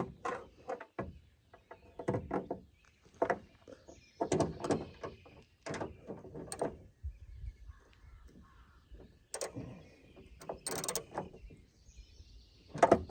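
Car door handle and its mounting hardware being worked by hand: a string of separate clicks, clunks and short squeaks.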